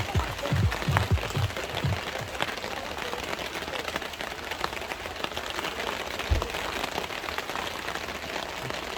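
Heavy rain falling, a steady hiss dotted with many small sharp drop ticks. Low rhythmic thuds sound through the first two seconds, and a single low thud comes about six seconds in.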